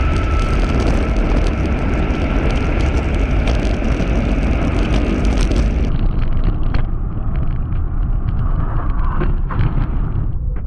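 Electric mountainboard running fast on asphalt: a steady rush of wind on the microphone over the rumble of the wheels on the road. A thin steady whine from its motors and gear drive fades out in the first few seconds, and the sound turns duller about six seconds in.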